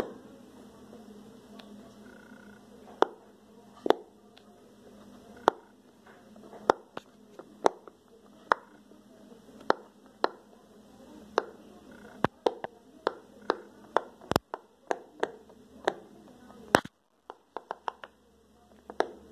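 Silicone pop-it fidget toy's bubbles being pressed in by fingers, giving a string of sharp pops at an uneven pace that come faster in the second half.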